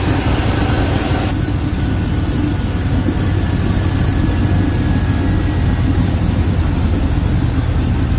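Chevy throttle-body-injected (TBI) engine running steadily at idle after its injector pod was rebuilt with new gaskets; a higher hiss over the engine note drops away about a second in.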